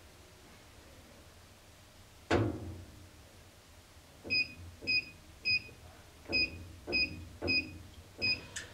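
Steel safe door shutting with one heavy thud, then seven short electronic beeps, one for each press of the safe's digital keypad as the locking code is entered, ending in a sharp click near the end.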